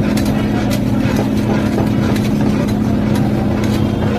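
Metal spatula and tongs clinking and scraping against a wide iron pan as chicken pieces are tossed, in quick irregular taps. Under it runs a steady, loud low hum.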